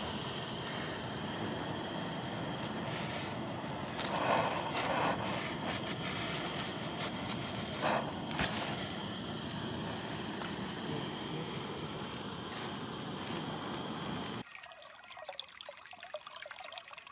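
Handheld butane torch hissing steadily as it singes the fur off squirrel carcasses, with a few brief knocks around four and eight seconds in. Near the end the hiss cuts off suddenly, leaving a quieter trickle of water.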